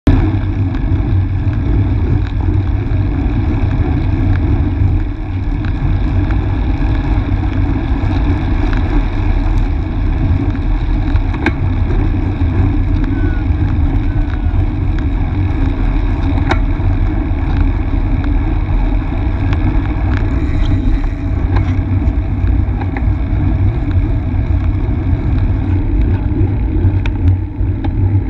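Steady wind rumble on the microphone of a camera riding on a road bike, mixed with tyre and road noise, with a few faint clicks.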